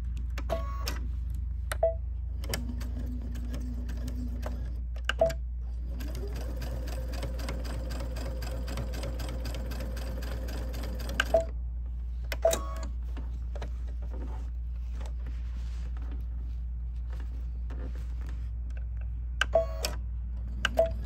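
Sewing machine stitching a seam through layered fabric in short runs, the longest lasting about five seconds near the middle, with sharp clicks between the runs.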